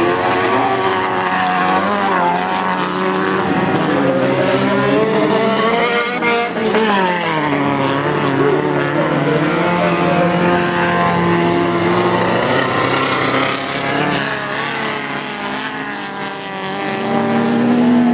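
Several autocross race cars' engines revving hard on a dirt track, their pitch climbing and dropping again and again with the gear changes. It gets loudest near the end as a car passes close by.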